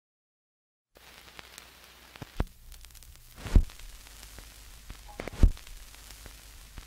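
Portable suitcase record player being handled: a few sharp clicks from the tonearm and controls over faint vinyl crackle and hiss, starting after a second of silence.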